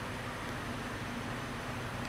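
Steady low hum with an even hiss over it, unchanging and with no distinct knocks or clicks.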